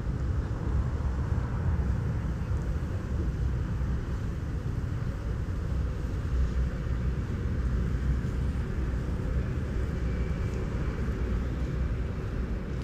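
Steady low rumble of night-time city ambience with vehicle engine noise and no distinct events.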